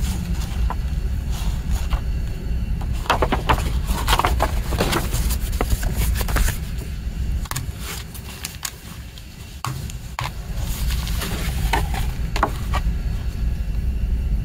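Handling of a CD digipak and its paper booklet: rustling of paper and light clicks of plastic and card, coming in clusters with a quieter stretch in the middle, over a steady low rumble.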